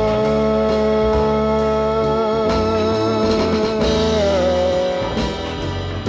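Background music: a pop love song with band and guitar, with one long held note that ends about four and a half seconds in.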